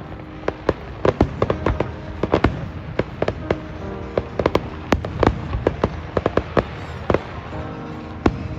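Fireworks going off in a quick, irregular series of sharp bangs, several a second, with music playing steadily underneath.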